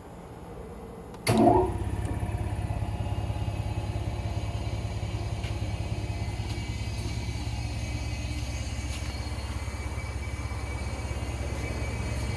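Hitachi PBD-1.5MNP6 2 hp package air compressor switching on about a second in with a sudden loud start, then running steadily with a fast low pulsing throb.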